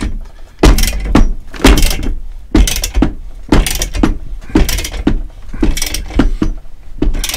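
Ratchet wrench worked in short strokes, about seven of them at roughly one a second, turning the nut on a threaded bar that draws a heated press-fit swingarm bushing into the swingarm; each stroke gives a brief mechanical rasp and clunk.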